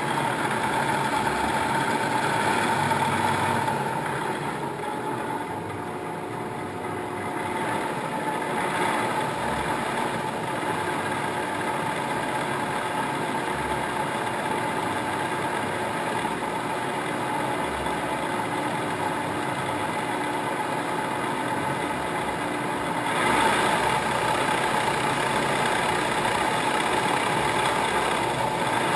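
1980 Kitamura T-20 CNC vertical machining center running with its spindle turning, most likely still in high gear: a steady mechanical hum with a constant high tone. It eases off a few seconds in and steps up louder near the end.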